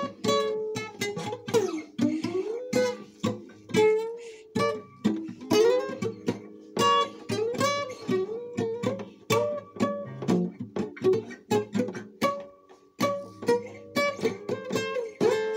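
Acoustic guitar being played, a run of plucked notes and chords ringing one after another, with a short pause about two thirds of the way through.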